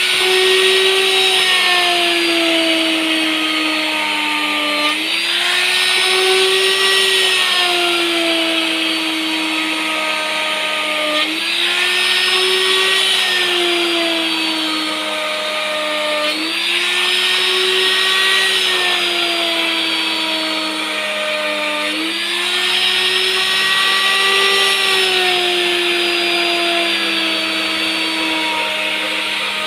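Electric wood router running continuously while cutting grooves in a plank for a wooden louvred shutter. Its whine jumps up in pitch and then slowly falls, over and over, about every five to six seconds.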